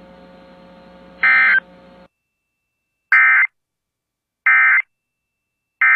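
Emergency Alert System end-of-message (EOM) data bursts: short, harsh, buzzing digital tones that mark the close of the alert. There is one burst about a second in over a faint broadcast hum, then three more evenly spaced about 1.3 s apart after the hum cuts out.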